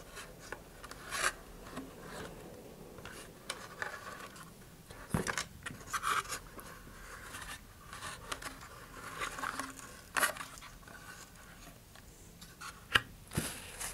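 Handling sounds from a model rocket and a plastic glue bottle: scattered light scrapes and rubs, with a few sharp knocks, one clear one about 5 s in, another about 10 s in and a last near the end.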